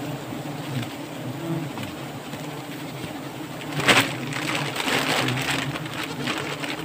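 Bees buzzing close to the microphone around their nest, the pitch wavering as they fly past. About four seconds in comes a sharp crack, followed by rustling.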